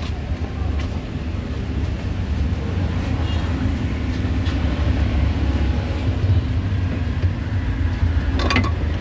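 Street traffic ambience: a steady low rumble of passing vehicles, with a few faint clicks and a short brighter sound near the end.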